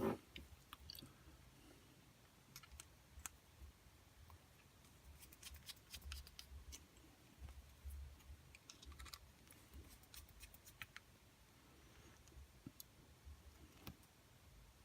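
Near silence with faint scattered clicks and light taps, small metal parts of a brushed RC motor being handled as it is put back together.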